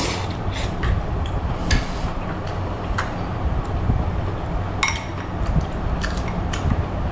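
Chopsticks and a spoon clicking and clinking against a ceramic bowl of phở as a man eats, with a slurp of noodles right at the start. A steady low hum runs underneath.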